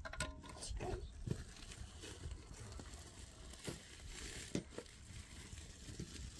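A plastic sack crinkling and rustling as white powder is shaken out of it into a basin of earth, with a soft hiss of pouring powder about four seconds in.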